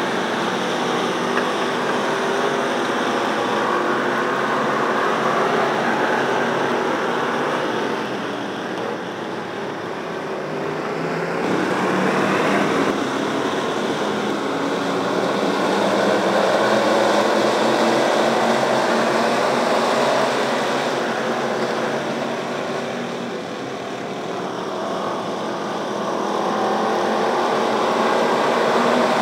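A field of pure stock dirt-track race cars running at racing speed, their engines blending into one continuous drone. It swells and fades as the pack goes around, dipping twice.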